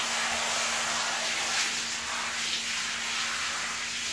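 Handheld shower head spraying water onto a wet dog's coat: a steady hiss of running water.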